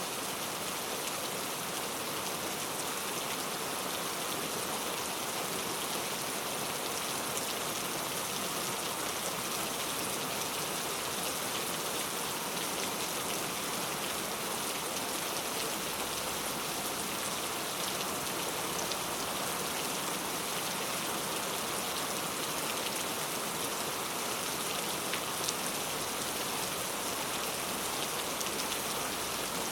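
Steady rain falling: an even, unbroken hiss with scattered ticks of individual drops.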